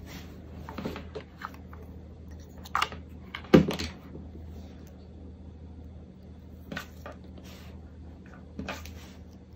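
Soft handling noises: a few light clicks and taps as a small round metal brooch-pin back is turned in the fingers and set against a tulle ribbon bow, the sharpest about three and a half seconds in, over a faint steady low hum.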